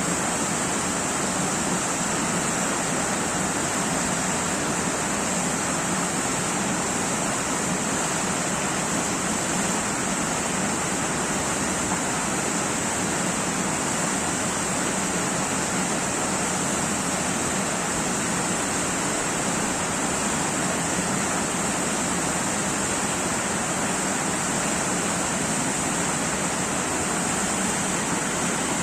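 Waterfall pouring in a steady, even rush, with a constant high hiss above it.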